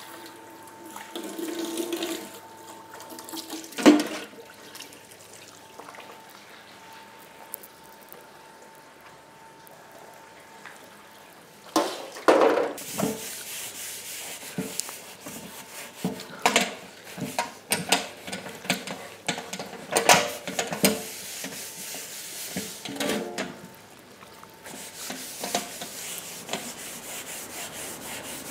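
Running water, like a kitchen tap, with scattered knocks and clatter of kitchen things. There is a sharp knock about four seconds in, and louder knocks around the middle.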